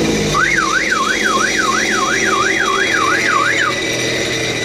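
Warbling electronic warning siren from a remote-triggered jet ski alarm unit, sweeping up and down about eight times, over the Sea-Doo jet ski's engine running steadily. The engine cuts off abruptly at the very end.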